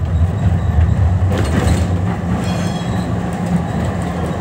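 Tram running, heard from inside the car: a steady low rumble of the wheels and motors on the rails. About a second and a half in there is a brief hiss, and at around two and a half seconds a short high-pitched squeal.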